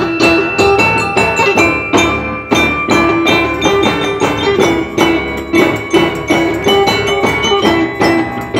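Instrumental ensemble music led by xylophone-type bar instruments struck with mallets, playing a steady, quick rhythm of struck notes over a repeating low figure.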